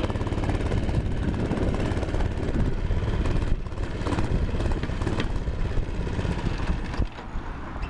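Baja Doodle Bug mini bike's 96cc four-stroke single-cylinder engine running steadily, with a few short knocks in the middle and the sound easing off slightly near the end.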